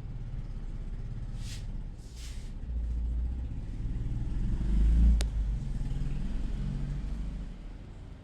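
A low rumble that swells to a peak about five seconds in and then fades, with two short hissing swishes at about one and a half and two seconds and a single sharp click near the loudest point.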